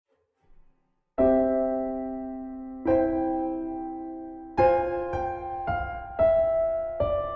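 Background piano music: slow, gentle chords, each struck and left to ring, starting about a second in after a short silence.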